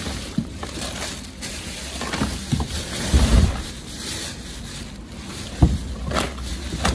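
Black plastic bin bags rustling and crinkling as gloved hands rummage through them, with a few dull thumps and knocks from things being shifted.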